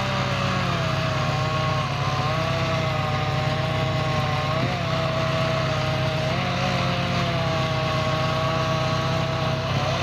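An engine running steadily, its pitch wavering a little up and down.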